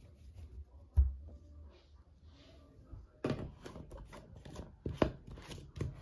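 Handling noises: a dull bump about a second in, then rustling with a run of sharp clicks and knocks from about three seconds in.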